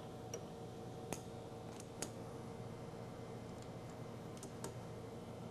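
A few light metallic clicks and taps, the sharpest about one and two seconds in, as a lathe arbor carrying a pressed-on part is fitted into the lathe chuck. A faint steady hum runs underneath.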